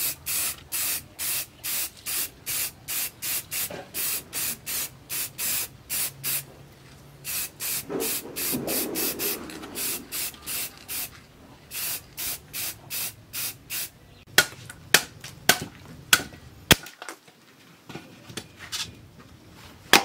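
Aerosol spray can hissing in short bursts, about three a second, with one longer spray near the middle. Several sharp clicks come in the last few seconds.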